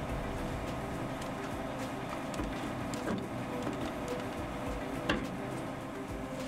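Heavy construction machinery's engine running steadily, with a few short metallic clicks from the work on the boom cylinder mounting, the loudest about five seconds in.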